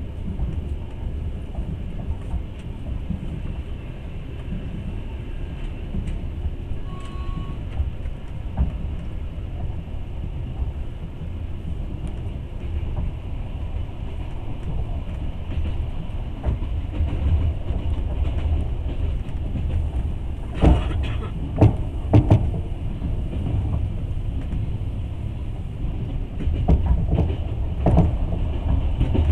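Passenger train running, heard from inside the carriage: a steady low rumble, with two clusters of sharp wheel knocks, about two-thirds of the way through and again near the end.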